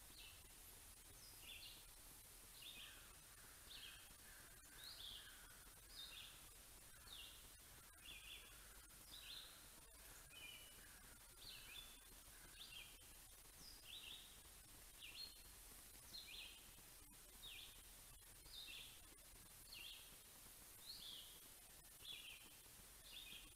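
Faint bird calls: short, high chirps repeated about once a second, with a softer twittering under them in the first half.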